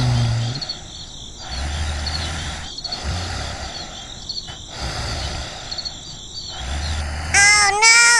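Outdoor ambience track: a steady noisy bed with small repeated high chirps and a low hum that comes and goes. Near the end come two short, wavering pitched calls.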